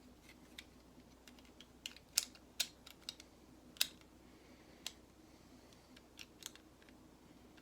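Lego plastic pieces clicking and tapping against each other as they are handled and tried in place: a string of irregular, faint sharp clicks.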